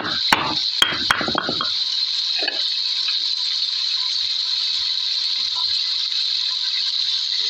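Steady loud hiss from chicken feet cooking, with a few sharp metal clinks in the first second or so.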